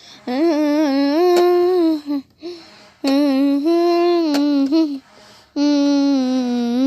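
A high voice, a woman's or a child's, humming a slow wordless melody in three long held phrases with short breaks between them.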